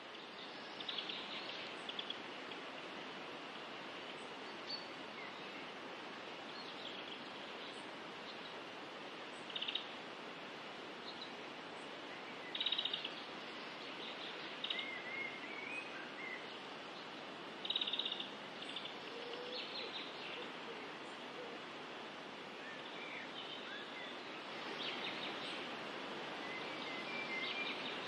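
A small stream rushing over rocks, a steady hiss of water, with birds giving short high chirping calls every few seconds above it.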